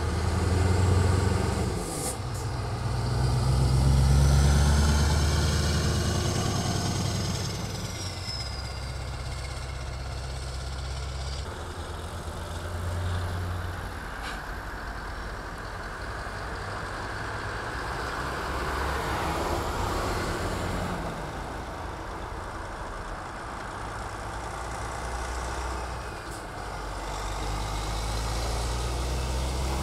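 Scania and Volvo heavy trucks driving past one after another, their diesel engines giving a low rumble that swells as each truck nears, with tyre hiss in between. A short sharp sound comes about two seconds in, and a high whistle rides over the engines for several seconds before falling away.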